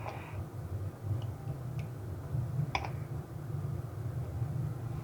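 A few short, sharp metallic clicks of tools and parts, the loudest a little before the middle, as the sensor cover is bolted onto the steering column's electric power steering reducer housing. A steady low hum runs underneath.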